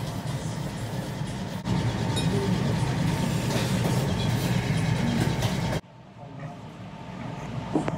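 Steady noisy ramen-shop background with a low rumbling hum. It jumps louder about two seconds in, drops sharply near the end, and a short click sounds just before the end.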